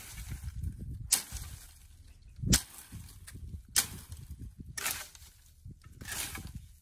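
A long-handled hoe striking into soil and brush roots, five sharp chops about a second apart while digging out a hole.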